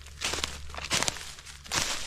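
Footsteps crunching and rustling through a thick layer of dry fallen leaves, three steps about a second apart.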